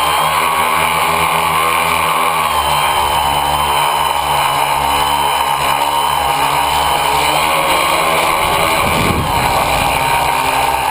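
Tricopter's three electric motors and propellers whining, close up through its onboard camera, the pitch wavering up and down with throttle changes. About nine seconds in the whine dips and a brief low rumble comes through.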